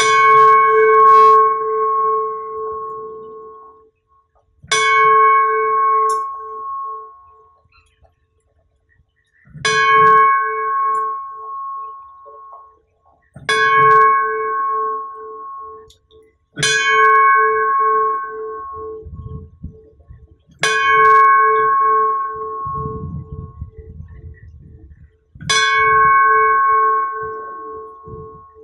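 Hindu temple bell struck seven times, roughly every four seconds, each strike ringing out with a wavering low hum under brighter tones and fading away before the next.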